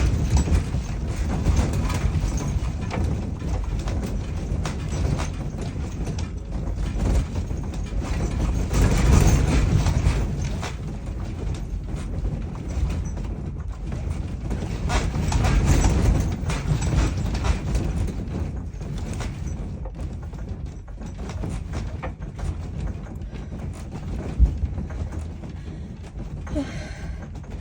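Building and its loose contents rattling and clattering in a strong earthquake, over a low rumble. The shaking swells twice and eases off near the end.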